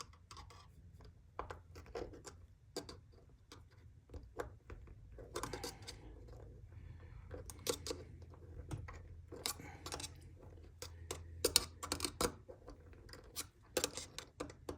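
Irregular small metallic clicks and scrapes of a multitool's parts being handled and pressed as a rod is worked back through its handle over a paracord lanyard, over a steady low hum.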